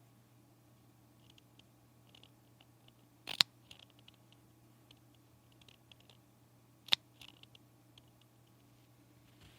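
Small handling sounds: two sharp clicks about three and a half seconds apart, with light ticks between them, over a steady low hum.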